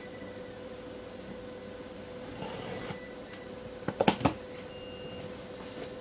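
Cardboard shipping box being handled and turned over, with a soft rustle and then a quick cluster of sharp knocks and taps about four seconds in. A faint steady hum runs underneath.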